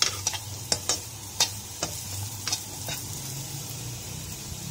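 Diced carrots sizzling in a little oil in a kadhai, with a spatula scraping and tapping against the pan as they are stirred. The tapping stops about three seconds in, leaving the steady sizzle.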